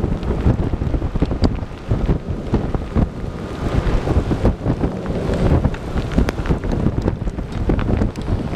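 Strong, gusty storm wind buffeting the microphone: a heavy low rumble that surges and drops, with irregular crackles and pops.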